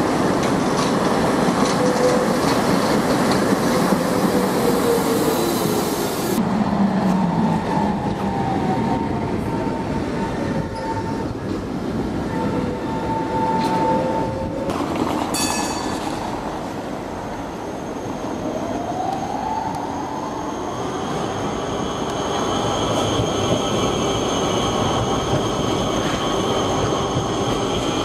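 Electric trams running past on street tracks: steel wheels rumbling on the rails under a motor whine. The whine falls in pitch in the middle and climbs steadily over the last third as a tram picks up speed.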